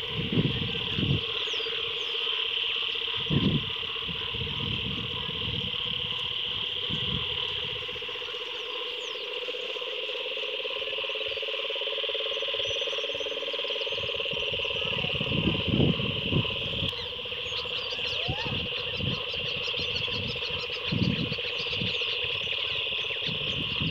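A steady chorus of frogs and insects calling around rain-filled ponds: a continuous high trill over a lower, rapidly pulsing buzz. Intermittent low rumbles come and go on the microphone.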